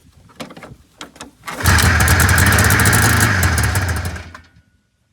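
1980 Yamaha SS 440 snowmobile's two-stroke engine being pull-started on fuel dribbled into it: a few short knocks from the pulls, then about a second and a half in it fires and runs loud for under three seconds before dying out. It catches only on the primed fuel and won't keep running.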